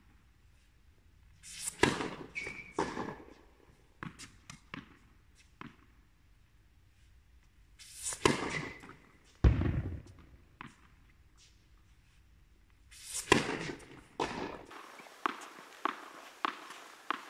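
Tennis balls struck by rackets and bouncing on an indoor hard court: a few sharp, echoing pops in small clusters, the loudest with a deep thud about nine seconds in. Near the end comes a run of lighter, evenly spaced ball bounces.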